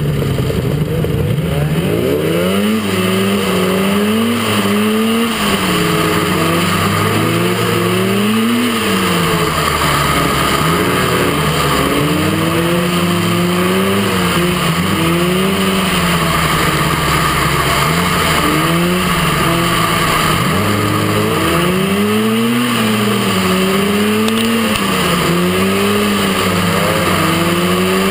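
Off-road mini buggy engine racing on a dirt track, its pitch rising and falling again and again as the throttle is opened and backed off, over a steady rush of noise from the other buggies' engines close by.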